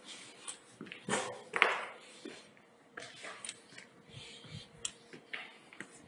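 Footsteps scuffing and crunching on gritty concrete steps, irregular, with the loudest scrape a little over a second in.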